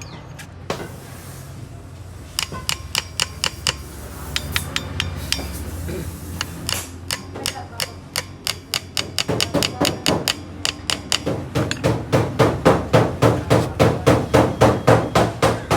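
Hammer blows on metal while a car alternator's bearing is being driven in or out: a quick cluster of lighter taps about two seconds in, then from around seven seconds a steady run of blows about three a second, getting louder toward the end, over a steady low hum.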